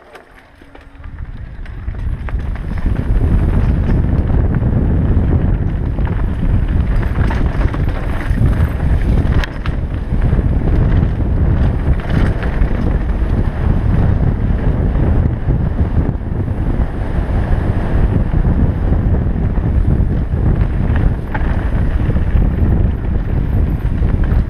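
Wind buffeting an action camera's microphone together with the rattle and crunch of a full-suspension mountain bike rolling fast down a rough dirt and stone trail. It builds over the first two or three seconds as the bike gathers speed, then holds as a steady loud rumble with many small knocks.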